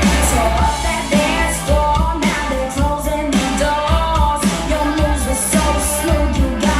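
Pop-rock song with a woman's lead vocal over strong bass and drums, played through a compact PA of two Bose S1 Pro speakers and a Bose SUB 1 subwoofer.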